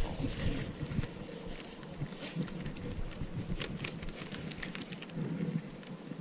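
Faint, irregular small clicks and rustling from a baitcasting rod and reel being handled.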